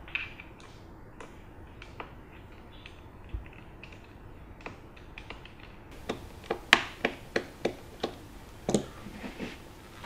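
Light clicks and taps from a precision screwdriver taking out the screws of a laptop's bottom panel. They are sparse and faint at first, then a quicker run of sharper clicks comes from about six seconds in.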